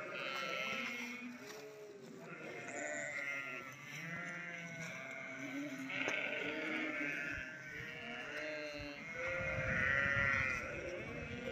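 A flock of sheep bleating, many overlapping calls at once, swelling loudest near the end.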